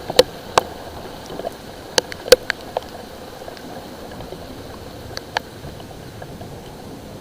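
Light rain: a steady hiss with irregular sharp ticks of drops striking a hard surface, most of them in the first three seconds.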